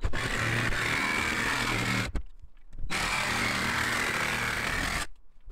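Cordless jigsaw with a metal-cutting blade sawing through the thin sheet-steel roof panel of a van, a steady high buzzing cut. It runs for about two seconds, pauses for about a second, then cuts again and stops about five seconds in.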